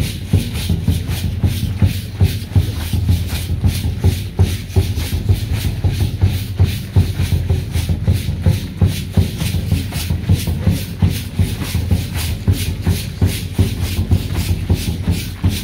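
A group of dancers stepping and shuffling in rhythm on a dirt road, with hand rattles shaken on the beat, several sharp strokes a second, keeping a quick steady beat.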